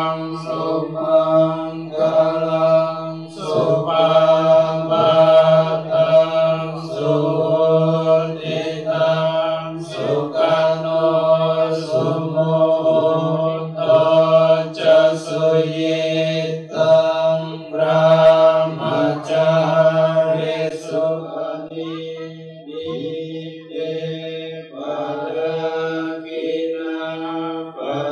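A group of voices chanting Theravada Buddhist verses in Pali, recited on one steady pitch in an even syllable rhythm.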